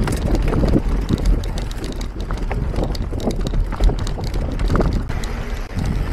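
Mountain bike riding over rough ground: wind buffeting the microphone and a low tyre rumble, with irregular knocks and rattles from the bike.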